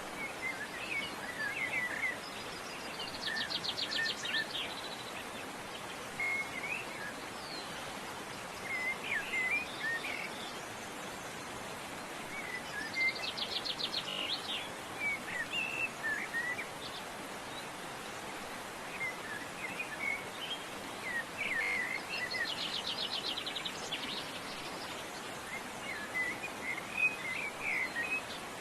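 Several birds chirping and calling, with a fast, buzzy trill three times about nine seconds apart, over a steady background hiss.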